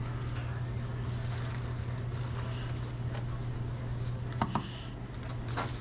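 Commercial kitchen background: a steady low machine hum, with two brief clatters about four and a half and five and a half seconds in.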